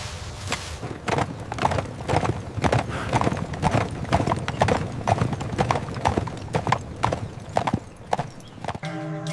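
A steady run of hard clopping knocks, like steps on hard ground, about two to three a second. They stop just before the end, as guitar music comes in.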